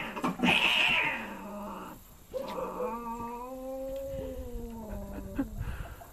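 Two cats fighting: a harsh, noisy hiss and spit in the first second as one swipes at the other, then one cat's long, low growling yowl of about three seconds, held at a nearly steady pitch.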